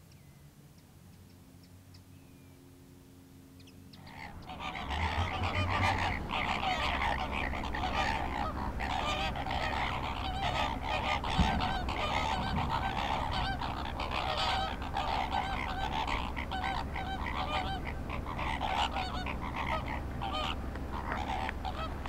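A large flock of waterbirds giving goose-like honking calls all together in a dense, unbroken chorus, setting in about four seconds in. There is one brief thump near the middle.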